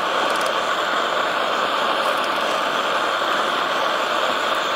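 Blower fan forcing air through a duct into a homemade melting furnace: a steady rushing hum that does not change. A few faint clinks of a metal spoon skimming dross from the molten lead come near the start and again about two seconds in.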